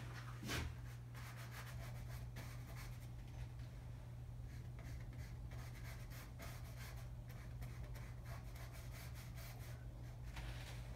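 A small paintbrush stroking across a stretched canvas: many short, soft scratchy strokes, over a steady low hum.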